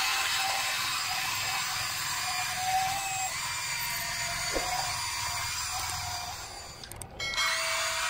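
Electric motors and plastic-and-metal gearboxes of a Huina RC model excavator whirring steadily as it drives on its tracks. The sound dips and breaks off near the end, then starts again.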